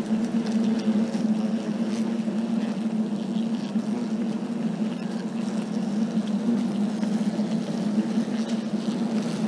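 A swarm of disturbed European hornets buzzing close around their nest, a dense steady hum with a wavering, fluttering texture.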